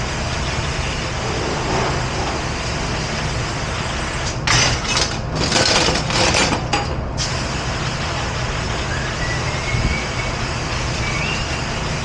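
Steady low hum of dish-room machinery, broken in the middle by about three seconds of loud hissing water spray in several short bursts from a pre-rinse sprayer over stainless steel.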